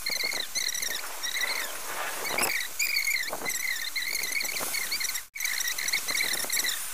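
Rain falling with a steady hiss, and over it a small creature's short wavering chirps, repeated many times.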